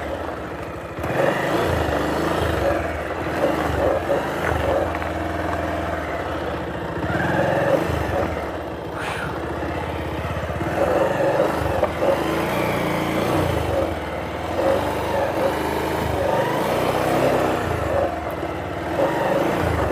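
Motorcycle engine running at low speed over a rough track, its revs rising and falling repeatedly as the throttle is opened and closed.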